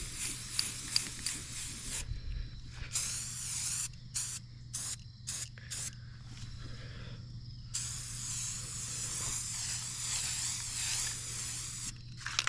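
Aerosol spray-paint can spraying: a long hiss, then a few short spurts in the middle, then a long steady spray again.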